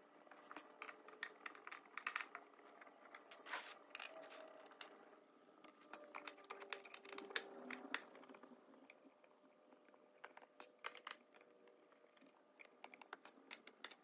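Hand screwdriver backing small screws out of the back of a wooden shadow-box frame: faint, irregular clicks and scrapes, busiest in the first few seconds and again near the end.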